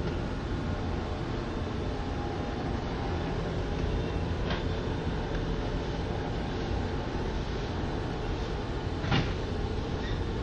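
Steady low rumble of a ferry's engines and hull vibration, heard from inside the passenger cabin. Two sharp knocks stand out, about four and a half seconds in and, louder, about nine seconds in.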